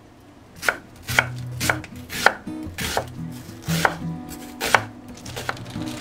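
Chef's knife cutting an onion and then napa cabbage on a wooden cutting board: irregular sharp knocks of the blade through the vegetable onto the board, about two a second, starting under a second in.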